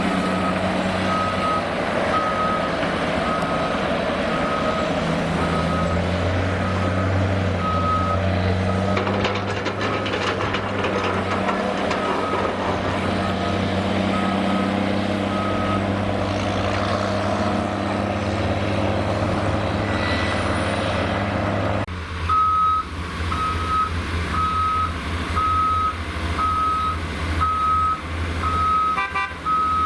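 Heavy diesel machinery running, a crawler excavator and an articulated dump truck, with a reversing alarm beeping about once a second. The beeping stops a little past halfway, then starts again, slightly quicker, after an abrupt change in the engine sound.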